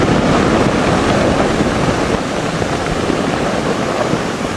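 Snow and ice avalanche pouring down a rock wall: a continuous loud rushing noise that eases a little near the end.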